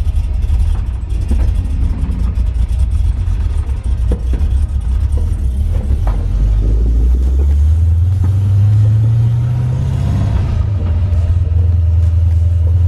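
LS V8 engine of a swapped 1999–2004 Ford Mustang heard from inside the cabin while driving. The engine note rises as the car accelerates about six seconds in, then holds steady at the higher pitch.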